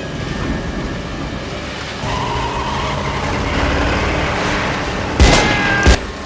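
Film soundtrack of a car engine revving with tyres skidding, ending in two heavy thumps less than a second apart near the end.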